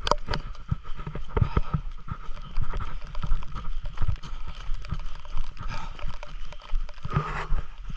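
Footsteps of a person in boots moving quickly over wet grass and a gravel road, a steady run of irregular thuds mixed with the handheld camera jostling.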